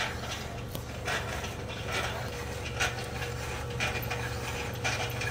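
Ramset slide gate operator running as it closes the gate: the electric motor hums steadily with a thin whine over it, while the drive chain and sprocket clatter in irregular clicks. The operator's chain, sprocket and idler have just been replaced.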